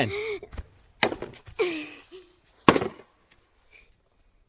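A stick whacking a piñata twice, two sharp blows about a second and a half apart, with a short shout between them.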